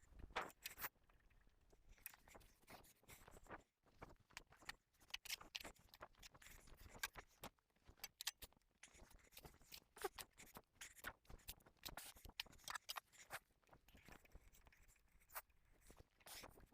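Faint, irregular clicks and small handling noises, scattered throughout with no steady rhythm.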